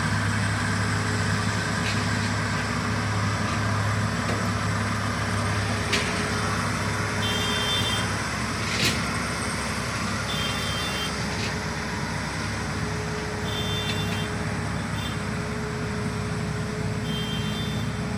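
Combine harvester engine running steadily, with two short clicks and a short high chirp repeating every few seconds in the second half.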